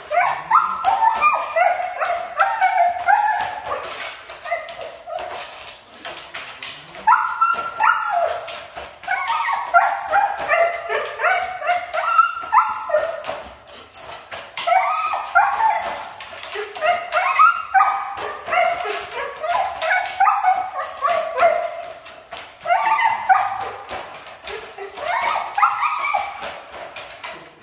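Siberian husky shut in a wire crate, howling and whining in long bouts of wavering, up-and-down yowls with short breaks between them, protesting confinement in the crate. Short clicks and rattles run under the calls.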